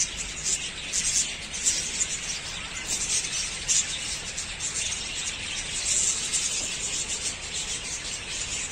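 A flock of budgerigars chattering continuously, a dense steady mass of quick, high chirps.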